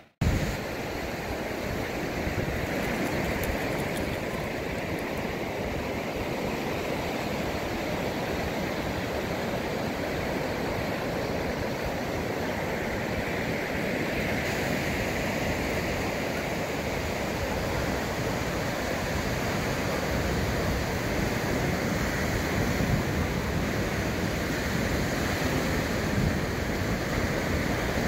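Ocean surf breaking and washing along a sandy beach, a steady rushing noise that cuts out for a moment right at the start and then carries on unbroken.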